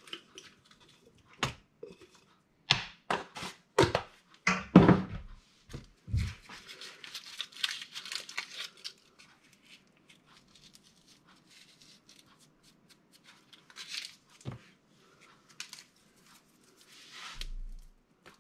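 Spices being added to a pan of tomato sauce: a series of sharp clicks and knocks from spice jars and lids, then a few seconds of crinkly rustling from a spice packet, with a single knock later on and more brief rustling near the end.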